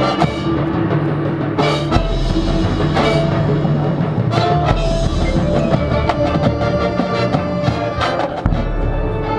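Marching band playing: brass and winds holding chords over the drum line, with several loud percussion hits.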